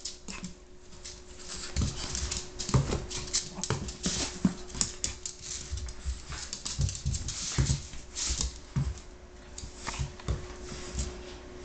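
A dog dragging a pet bed with a small dog in it across the floor: irregular scuffing, rustling and soft knocks, over a faint steady hum.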